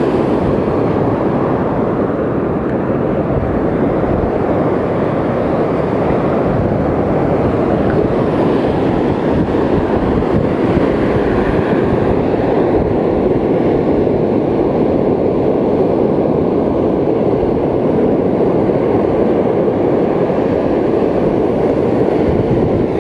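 Steady rushing noise of wind buffeting the microphone, mixed with ocean surf on the beach.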